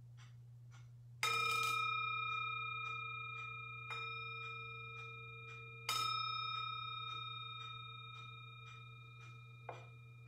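Metal singing bowl struck three times with a wooden striker, the second strike softer, each note ringing with several overtones and fading slowly until the next; a light knock near the end. The strikes mark the close of a time of silent prayer.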